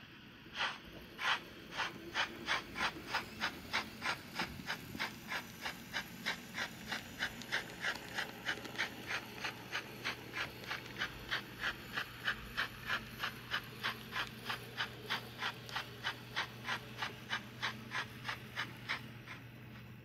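Trix S 2/6 H0 model steam locomotive running with its sound playing steam exhaust chuffs. A short hiss comes first, then regular beats that quicken to about three a second and keep an even pace, over a faint steady hum.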